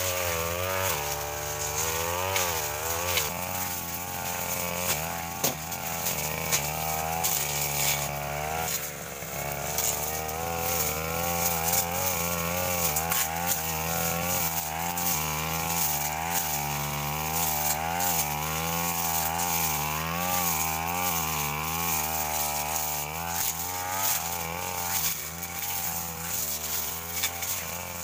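Backpack brush cutter's two-stroke engine running at high revs while it cuts brush and ferns, its pitch wavering up and down continually as the blade meets the growth.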